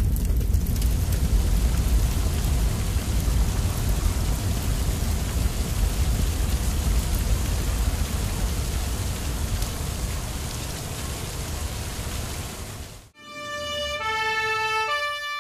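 Steady rushing hiss of water spraying from a fire hose, with a strong low rumble underneath, easing slightly in its last few seconds. It cuts off near the end and gives way to a short synthesized jingle of chiming notes.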